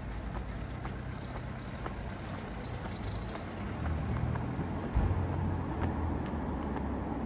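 City street ambience: a low vehicle engine rumble that swells about four seconds in, with a dull thump near five seconds and faint footsteps on the pavement.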